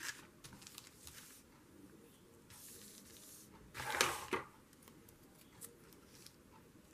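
Paper and card being handled on a tabletop: faint rustles and small ticks, with one louder paper rustle about four seconds in.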